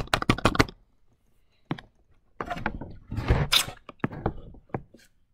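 Scattered knocks and clicks with a brief rustle, like someone handling things at a desk: a quick run of short taps fades under a second in, then a lone click, a rustling noise, and a few more clicks.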